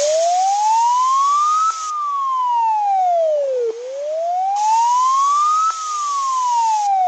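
Emergency alert alarm with a wailing siren tone: one pitch rising for about two seconds and falling for two, twice over, over a layer of static hiss that drops out about two seconds in and comes back about two seconds later.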